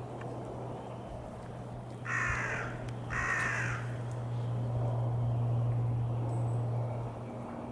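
A crow cawing twice, two harsh calls about a second apart, over a steady low hum.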